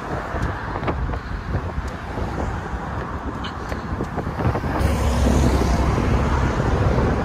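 Road traffic rushing past on a bridge, mixed with wind noise on the microphone. It swells louder with a deeper rumble about five seconds in.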